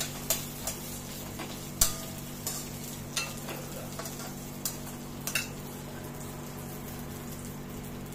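Vermicelli roasting in ghee in a kadai while a spoon stirs it: sharp clicks and scrapes of the spoon against the pan over a faint sizzle. The clicks come often in the first half and thin out after about five seconds.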